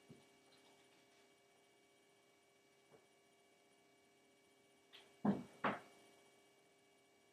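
Quiet room with a faint steady electrical hum, broken about five seconds in by two short thumps half a second apart, with a few faint clicks elsewhere.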